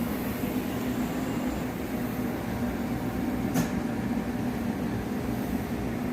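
Compact 5-axis CNC tool grinder running with a steady hum, and one sharp click about three and a half seconds in.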